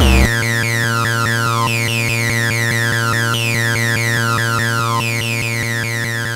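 Breakdown in an electronic dance music DJ set: the kick drum is gone, leaving a held synth chord with a repeating falling synth figure above it.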